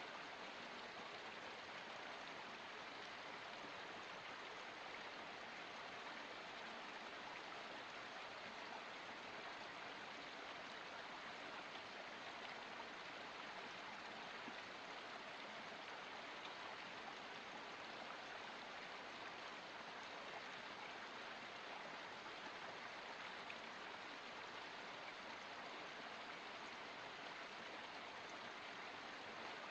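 Water of a small forest spring running steadily, an even, soft rushing trickle with no breaks.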